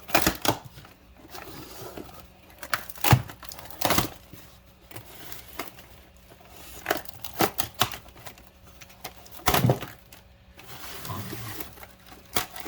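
Cardboard and paper casing of a firework fountain being ripped and torn apart by hand, in irregular sharp rips and crackles with short pauses between.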